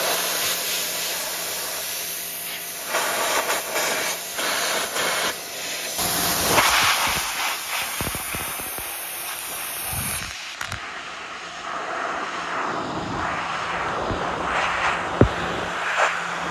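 Pressure washer running with a steady hum while its water jet hisses against the cast-iron bed of a Seneca Falls lathe, the spray sound swelling and fading as the nozzle moves. A sharp click near the end.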